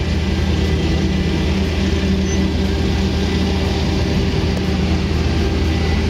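Heavy diesel engine running steadily with a low, even drone, from the truck-mounted concrete boom pump working during the pour.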